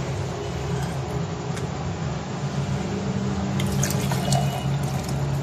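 Milk poured from a jug into a glass of rose syrup, a liquid filling sound, with a few light clinks from about three and a half seconds in, over a steady low background hum.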